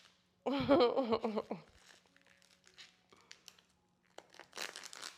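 A short wavering vocal sound lasting about a second, then faint crinkling and clicking handling noises.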